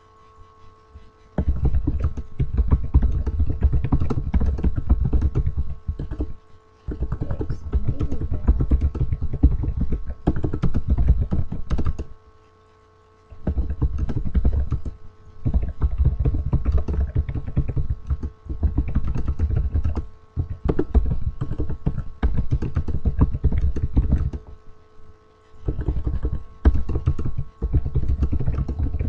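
Fast typing on a computer keyboard: runs of rapid key clicks broken by a few short pauses, over a steady electrical hum.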